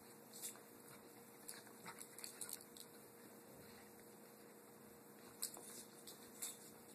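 Shiba Inu puppy and another puppy play-wrestling: faint, brief, sharp dog sounds in small clusters, the sharpest about five and a half seconds in, over a quiet room hum.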